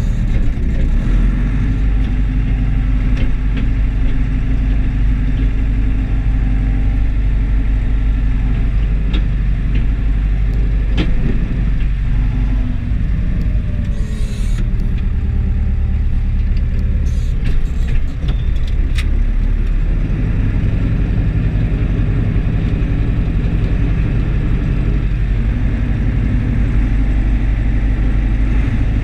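Deutz DX 4.70 tractor's air-cooled diesel engine running steadily, heard from inside the cab, with a few brief clicks and rattles partway through.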